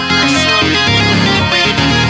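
Background music: an upbeat track with prominent electric guitar over a steady beat.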